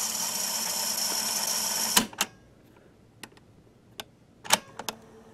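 Panasonic RQ-309S cassette recorder rewinding: a steady whir of motor and spooling tape for about two seconds, cut off with a click. Several clicks of the transport keys follow, the loudest about four and a half seconds in as the play key latches, and then the motor runs with a faint steady hum.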